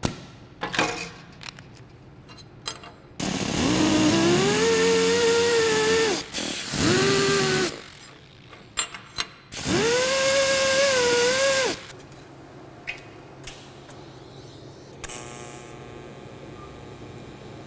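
Pneumatic die grinder with a small abrasive disc, run in three bursts of a few seconds, each spinning up to a steady whine over a hiss of air; it is cleaning the weld area of a tacked steel tube joint so the welding goes on over clean metal. A few clicks of handling come before it, and near the end a quieter steady hum starts as the TIG arc strikes.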